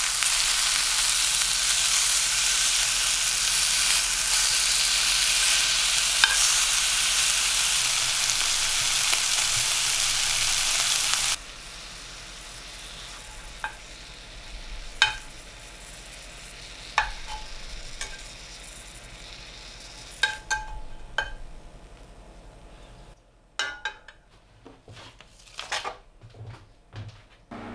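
Pork fillet pieces sizzling in hot oil in a frying pan. The sizzle cuts off suddenly about eleven seconds in. After that come scattered light clicks and taps of tongs and metal, with the seared meat on a steel tray.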